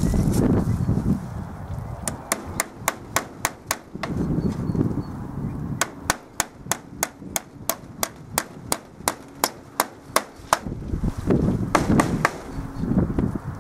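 Hammer driving nails into a wooden post: quick runs of sharp strikes, about four a second, the longest run lasting about five seconds. A low rumble fills the gaps between the runs.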